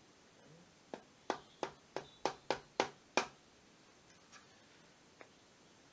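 Wooden mallet striking a chisel into timber held in a vise: a run of about eight sharp knocks, about three a second, starting about a second in, then two faint taps later on.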